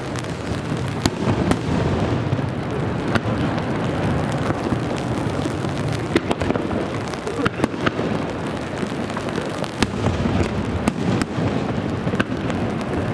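Aerial fireworks going off in a rapid series of bangs and crackles, over a steady patter of rain on an umbrella.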